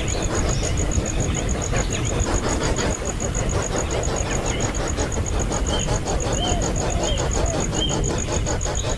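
A cricket chirping in a fast, even high pulse over a steady low rumble, with a few short high chirps in the second half.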